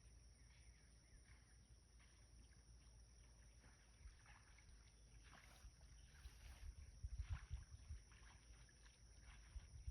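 Near silence: a faint low rumble with scattered soft clicks, and a few louder low bumps about seven seconds in.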